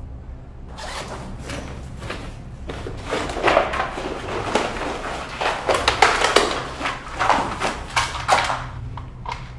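A schoolbag being shaken upside down, its books, pencil case and other contents tumbling out and clattering onto a tiled floor amid rustling of the bag's fabric. It is a fast, uneven run of knocks and rustles that starts about a second in and is loudest in the second half.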